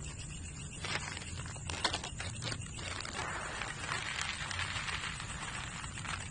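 Plastic cat-food packet crinkling, with a few sharp crackles between about one and three seconds in, then a steadier rustle from about three seconds in as dry kibble is poured out of it.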